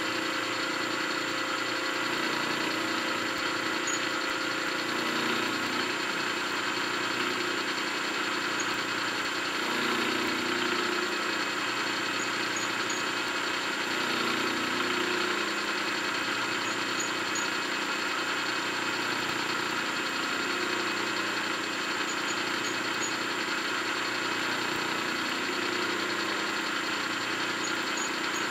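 Vertical milling machine running with an end mill cutting metal, taking light side passes along the edge of a cam part. A steady spindle hum mixes with continuous cutting noise.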